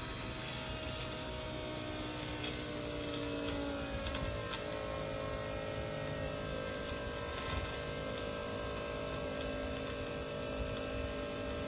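Bosch 044 external electric fuel pump running alongside the in-tank pump: a steady electric whine made of several tones. Two to four seconds in it drags down in pitch as the 044 starts pushing fuel, then holds steady under load.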